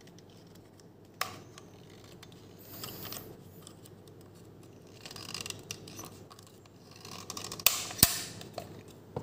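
Light clicks and scraping from a blaster gearbox's shell and spring being handled and worked back into place. There is a sharp click about a second in and two more near the end.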